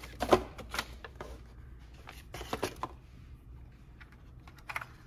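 Sharp plastic clicks and handling noise from a Nerf Rival XXII spring-action blaster as a foam round is loaded into its single-round breech. The clicks are scattered: the loudest comes about a quarter second in, a small cluster follows around two and a half seconds, and a pair comes near the end.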